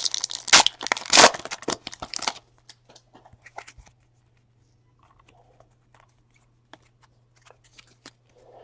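A 2016 Panini Elite Extra Edition trading-card pack wrapper torn open, crinkling loudly for the first two seconds or so. Then soft clicks as the cards are handled and thumbed through.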